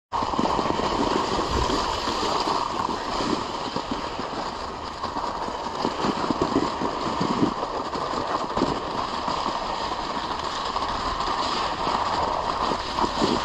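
Cooper Super Sprint dog sled moving over a snowy trail: a steady scraping hiss from the runners, with scattered knocks and rattles from the sled.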